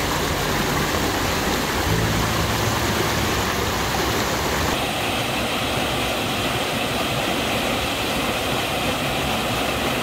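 Mountain stream rushing and splashing in small cascades between boulders, a steady rush of white water. Its tone shifts slightly about five seconds in.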